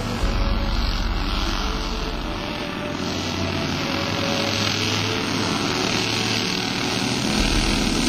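Engine noise of a large radio-controlled model aircraft in flight, a steady drone that grows a little louder near the end.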